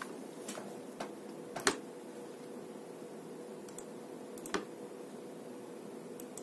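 Computer keyboard and mouse clicking: a handful of sharp clicks, several in quick pairs, the loudest about a second and a half in, over a steady hiss with a faint constant hum.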